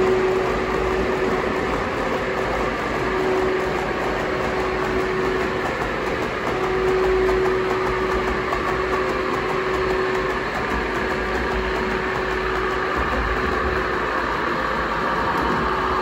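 O gauge model trains running on a layout: a model Class 58 diesel hauling a rake of coal hoppers, giving a steady engine-like running sound with a humming tone that comes and goes.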